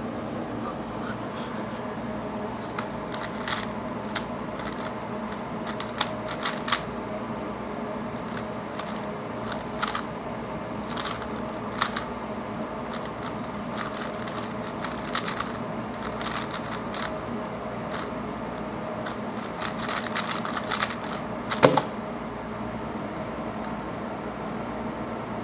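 A 3x3 Rubik's cube being turned fast in a speedsolve: irregular runs of plastic clicks and clacks of the layers, ending in one louder knock a few seconds before the end as the solve stops. A steady air-conditioner hum runs underneath.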